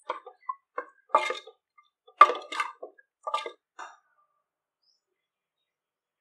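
A ladle stirring and mashing soft-cooked dal and chayote in an aluminium pressure cooker: a series of short, irregular scrapes and wet squelches over the first four seconds.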